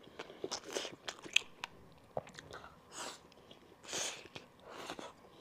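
Close-miked chewing of braised monkfish offal and rice: soft, wet mouth sounds broken by sharp little clicks, with a few louder moments about three and four seconds in.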